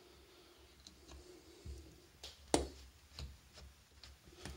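Faint small clicks and ticks of metal parts as the vacuum-chamber cover screws of a motorcycle carburetor are worked and the carburetor is handled in gloved hands. One sharper click comes about two and a half seconds in.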